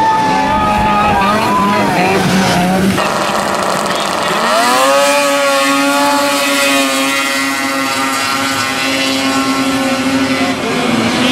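Racing snowmobile engines running at high revs as the sleds skim across open water. About three seconds in the sound changes abruptly. A second or so later an engine's pitch rises and then holds steady and high.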